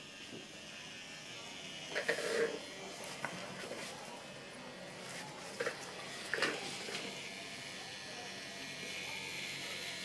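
Tattoo machine buzzing steadily as it works ink into skin, with a few short knocks about two seconds in and again around six seconds in.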